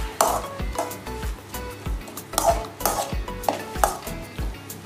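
Metal spoon stirring and scraping half-cooked scrambled egg and onion-tomato masala in a metal kadai, knocking against the pan in quick repeated strokes, about two to three a second.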